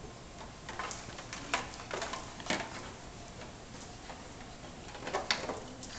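Scattered light clicks and taps of doodle puppies scrambling and playing on a tile floor, with a cluster of quick clicks about five seconds in.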